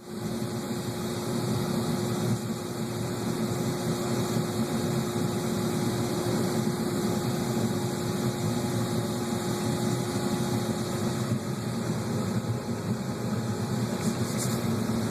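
Wood-fired maple sap evaporator at a boil: a steady rumbling noise of fire and boiling sap, with a faint steady hum.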